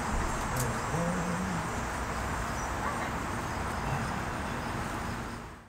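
Steady noisy background with a short, low voice-like sound about a second in; the sound fades out at the very end.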